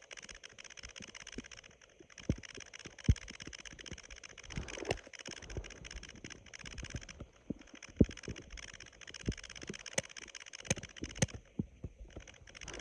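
Human stomach and bowel sounds: sparse short pops and clicks, with a brief gurgle a little before the middle.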